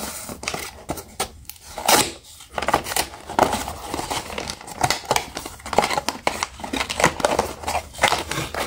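Small cardboard blind box torn open by hand: the paper seal strip is peeled and ripped off in irregular tears and scrapes, louder once about two seconds in, then the lid flaps are pulled open.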